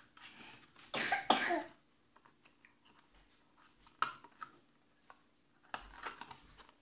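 Two short coughs in the first two seconds, then scattered light clicks and crinkles of a small cardboard toy juice carton being folded into shape by hand.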